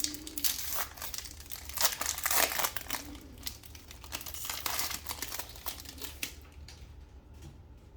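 Plastic wrapper of a trading card pack being torn open and crinkled by hand, a dense crackle that thins out after about six seconds.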